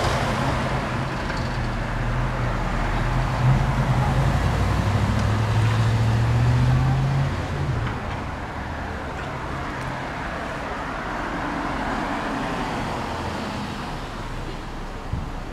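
Street traffic: a vehicle's engine runs low and steady for about the first seven seconds and then fades, followed by the rising and falling rush of a car passing.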